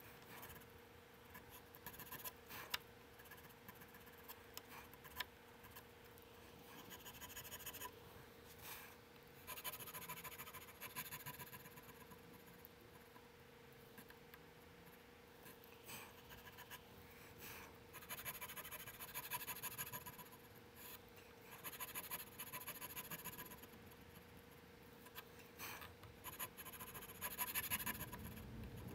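Checkering tool cutting into a wooden 1911 pistol grip panel, deepening the checkering lines, in runs of quick scratchy strokes with short pauses between. A faint steady hum lies underneath.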